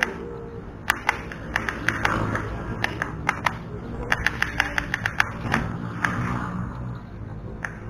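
A run of sharp, irregular clicks, thickest a little past the middle, over a low steady background with faint music.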